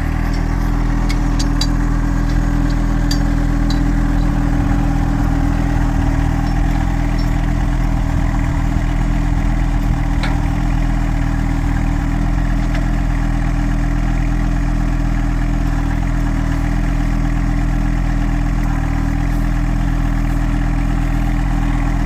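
John Deere 1025R compact tractor's three-cylinder diesel engine running at a steady speed as it drives and works its front loader, with a few faint knocks.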